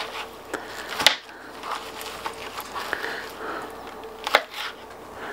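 Gloved hands pulling the skin off raw chicken thighs and moving the meat and a boning knife on a plastic cutting board. Soft, irregular rubbing and handling noise with a few sharp clicks, over a faint steady hum.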